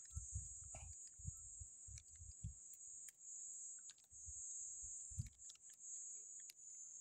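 Faint, steady, high-pitched insect drone in the bush, with a few soft low thumps in the first couple of seconds and once about five seconds in.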